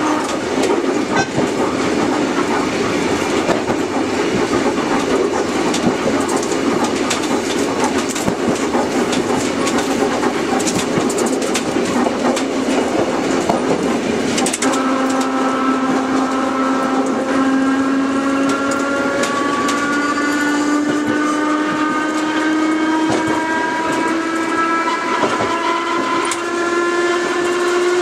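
Kotoden 5000-class car 500, a vintage electric railcar, running on the rails with rumble and scattered rail clicks. About halfway in, its traction motor and gear whine sets in and rises steadily in pitch as the train gathers speed.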